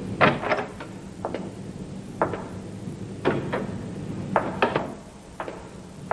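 Hard-soled footsteps and a wooden door being opened and handled: a string of sharp knocks and clicks, single or in pairs, about a second apart.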